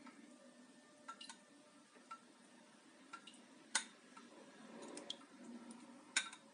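Faint, regular ticking about once a second, with two sharper clicks, one near the middle and one near the end, as the plastic TDS meter pen is handled in a glass of water.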